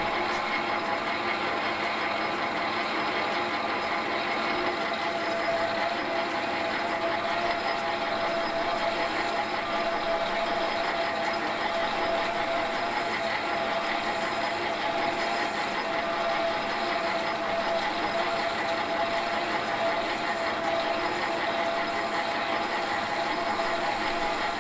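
Small metal lathe running steadily, spinning a machined lap charged with 500-grit lapping compound inside an engine cylinder bore that is worked back and forth over it by hand. A steady machine whine over an even hiss, with no change in speed.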